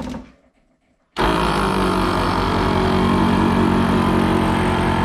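ARB CKMAT12 twin 12-volt air compressor starting up about a second in and running loud and steady with a rapid, even pulsing, then cutting off abruptly near the end. It is a test run after one pump's piston barrel was rebuilt, checking that both pumps work and that there are no air leaks.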